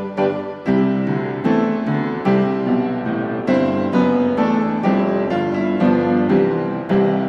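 Piano music with notes struck at an even, unhurried pace; near the end a final chord is left ringing.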